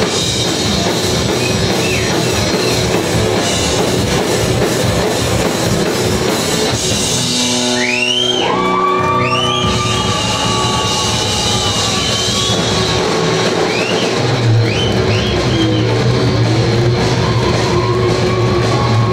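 Live rock band playing: electric guitar, bass guitar and drum kit, with sliding notes and held tones about halfway through.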